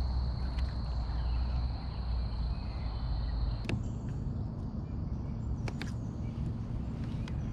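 Outdoor ambience on the water: a steady high-pitched insect drone over a low wind rumble, both cutting off abruptly about three and a half seconds in. After that it is quieter, with a few sharp clicks.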